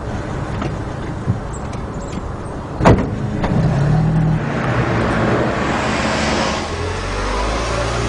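Car driving, with steady engine and road noise. There is a single sharp click about three seconds in, and the noise swells a little towards the end.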